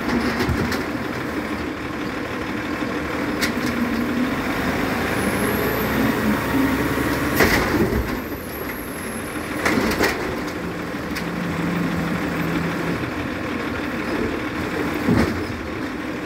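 Autocar WX64 garbage truck running while its Amrep automated side-loader arm hydraulically lifts a green-waste cart, tips it into the hopper and lowers it back. Several sharp knocks of the cart and arm, the loudest about halfway through, over the steady engine.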